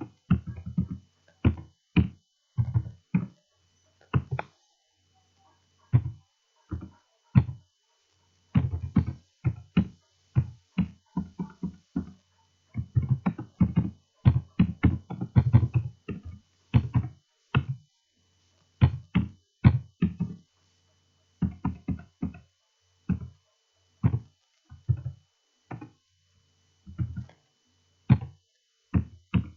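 Typing on a computer keyboard: irregular key clicks, sometimes single, sometimes in quick runs, with pauses between words.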